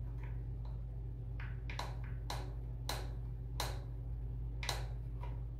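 Plastic clicks of a wall-mounted automatic toothpaste dispenser as a toothbrush is pushed up against its push plate again and again, about eight or nine sharp clicks at uneven intervals. The presses are not getting toothpaste out: the dispenser is failing to work.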